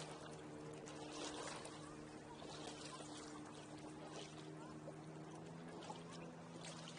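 Water splashing and gurgling along the hull of a McVay Minuet sailboat under way in light wind, with a steady low hum underneath.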